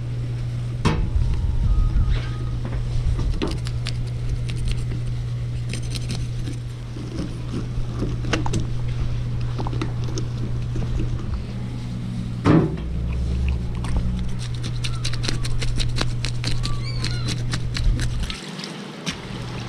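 Kitchen knife cutting and scraping at fish at the gills on a plastic cutting board: a run of short scrapes and knocks, thickest near the end, with one stronger knock about halfway. Under it runs a steady low motor hum that stops suddenly near the end.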